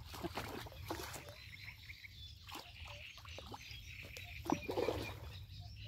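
Frogs croaking from reedy water, a run of short croaks and clicks with a louder burst about four and a half seconds in, over a steady low rumble.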